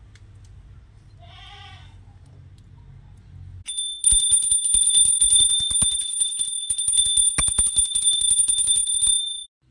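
Small brass puja hand bell (ghanti) rung rapidly and continuously for about five and a half seconds with a bright, sustained ring, then stopped abruptly. Before it, about a second and a half in, a single faint animal bleat.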